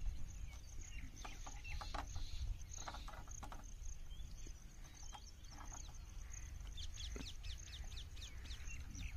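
Birds chirping with quick falling notes, over a steady low rumble, with scattered clicks in the first half.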